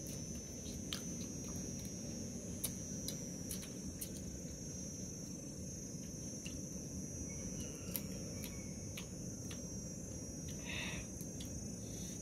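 Steady high-pitched chirring of crickets over a low background hum, with scattered sharp clicks and crunches from people eating crisp fried chicken feet.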